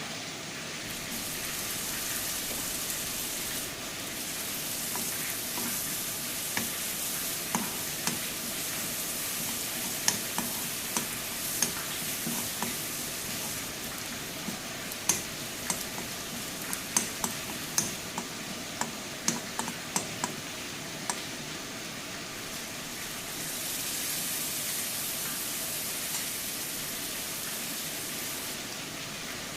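Food sizzling as it fries in a hot pan, stirred with a spoon that clinks and scrapes against the pan many times through the middle stretch.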